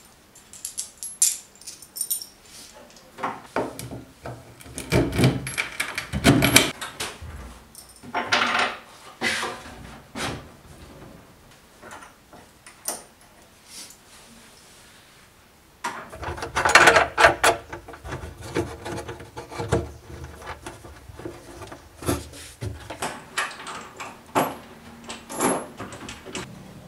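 Metal bolts and nuts clinking and rattling as they are fitted by hand into a wooden bench frame, with scattered knocks on wood. The clatter is irregular and grows busier and louder about sixteen seconds in.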